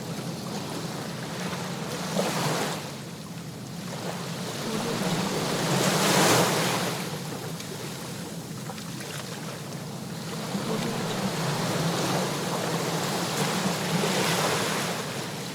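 Sea waves washing onto a shore: a steady rush of surf that swells with each wave, three times, the loudest about six seconds in.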